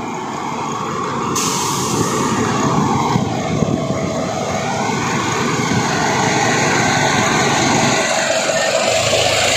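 Heavy truck's diesel engine running close by, with a steady hiss that cuts in abruptly about a second and a half in.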